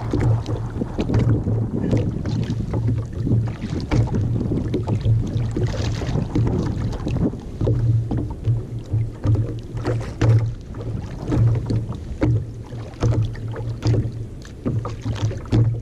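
Water slapping and lapping against the hull of a plastic sit-on-top kayak, with many small knocks and a pulsing low hum.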